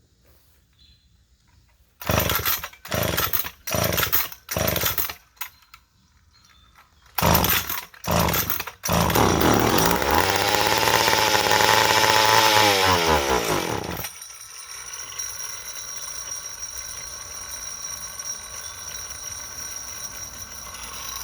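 McCulloch 10-10A two-stroke chainsaw being pull-started: a run of short pulls that turn the engine over, then a second burst of pulls. After that the engine catches and runs for about five seconds, its pitch rising and then sinking as it slows and dies.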